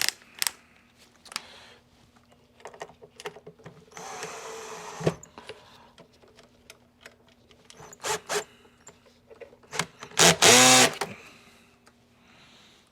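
Screws being driven in with a power drill-driver, with clicks and knocks of parts and tools being handled. The driver runs in short bursts, the loudest and longest a whirr about ten seconds in.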